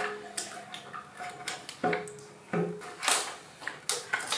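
Irregular metal clinks and knocks, about ten in all, as a BMW N52 cylinder head is rocked and worked free of the engine block during removal.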